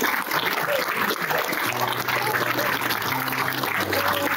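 Audience applauding, a dense steady patter of many hands clapping. About halfway through, a few low steady music notes come in under it.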